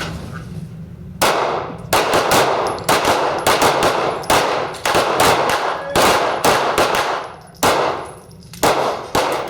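Pistol fire from several shooters on a firing line, each firing six rounds one-handed against a nine-second limit: irregular, overlapping shots starting about a second in, densest in the middle, and thinning to a last few near the end.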